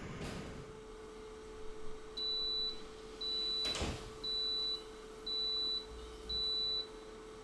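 Air fryer beeping five times, each beep about half a second long and about a second apart: the end-of-cycle signal that the cooking is done. A single click falls between the second and third beeps, over a steady faint hum.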